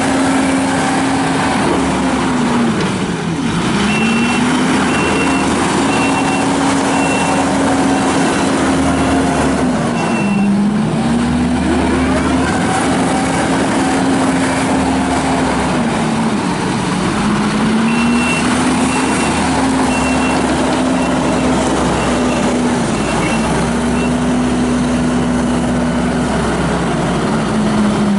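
Kubota SVL75-2 track loader's four-cylinder turbo diesel working under load: its pitch sags and recovers about five times as it digs or pushes. Its backup alarm beeps about twice a second during two stretches of reversing.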